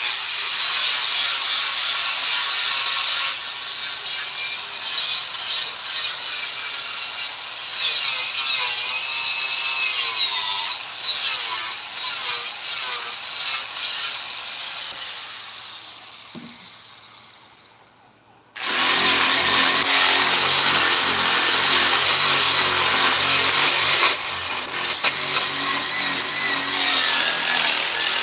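Handheld power tool cutting or sanding wood, its pitch wavering as the load changes. It winds down to nearly nothing, then starts up again abruptly about two-thirds of the way through.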